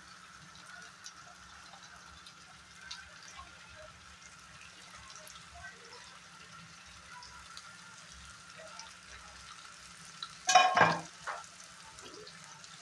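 Fish steaks in spice paste sizzling gently in mustard oil in a pan, with faint scattered crackles. About ten and a half seconds in comes a brief loud clatter.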